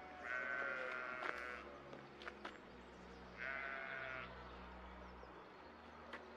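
An animal bleating twice: a longer call near the start and a shorter one about three seconds later, with a few faint clicks between.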